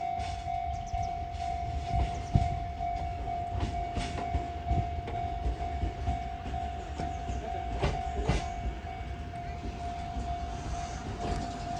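JR E353 series electric train rolling slowly into a station, with a low rumble and a few sharp clicks and knocks from its wheels over rail joints. A level-crossing warning bell rings steadily throughout.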